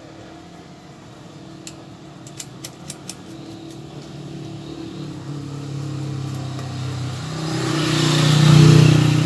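A motor vehicle engine drones at a fairly even pitch, growing steadily louder over several seconds and loudest near the end. A few light, sharp clicks come about two to three seconds in.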